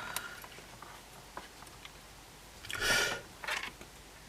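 Handling noise: a few small clicks and a short rustling scrape about three seconds in, as equipment and leads are handled on the workbench. No music is playing yet.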